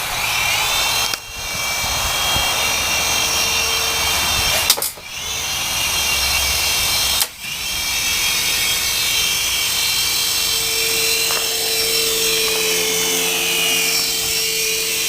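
Small remote-control toy helicopter's motor and rotors whining steadily in flight. The whine dips and returns three times: about a second in, about five seconds in and about seven seconds in.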